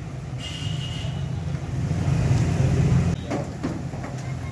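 Steady low rumble of street traffic, with a few short knocks a little after three seconds in.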